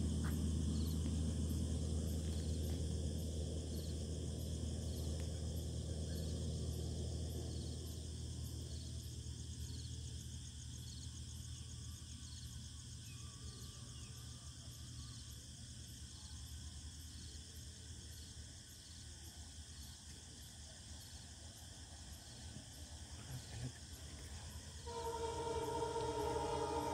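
Insects chirping in a steady, evenly repeating pulse, with a low hum that fades out over the first several seconds. Near the end the approaching Humsafar Express locomotive sounds its horn, a loud multi-tone blast.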